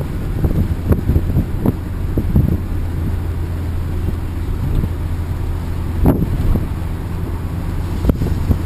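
Renault Kangoo 1.6 petrol van on the move: a steady low engine and road drone with tyre and wind noise, broken by a few short knocks.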